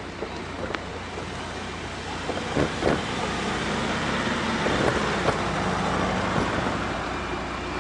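Road traffic heard from a moving bicycle: a car passes close by, its engine and tyre noise swelling through the middle and easing off near the end, with a few short knocks.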